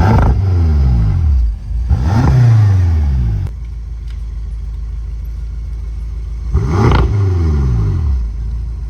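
BMW M5 F10's twin-turbo V8 revved in three sharp throttle blips, at the start, about two seconds in and about seven seconds in, each falling back to a steady idle. The exhaust spitting out built-up carbon, as the owner puts it.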